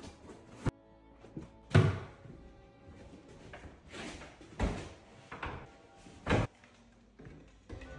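Background music, with a handful of irregularly spaced knocks and thuds as a white kitchen base cabinet is handled and set against the wall; the loudest knock comes about two seconds in.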